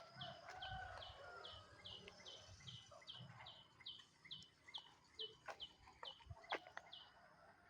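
Faint bird calls: a rapid, even series of high, downward-sliding peeps, about three a second, which stops shortly before the end, with soft lower clucking calls beneath.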